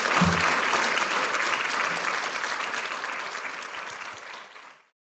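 Audience applauding at the close of a lecture, fading away and stopping shortly before the end.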